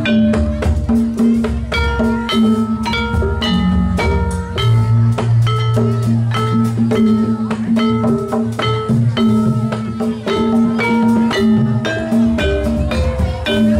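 Javanese gamelan music accompanying the dance: quick struck metal-keyed and gong-chime notes, about three a second and each ringing briefly, over a steady low tone and drum beats.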